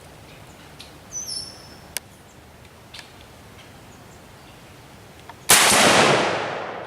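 A single rifle shot from an M1A in .308 (7.62×51 mm), loud and sudden about five and a half seconds in, its report dying away over about a second.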